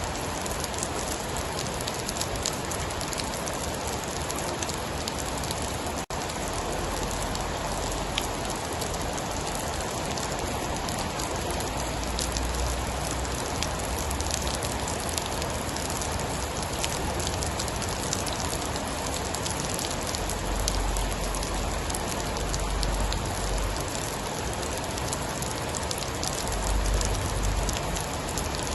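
Steady heavy rain falling on a surface, with many small drop ticks. From about halfway through, a low rumble swells and fades several times.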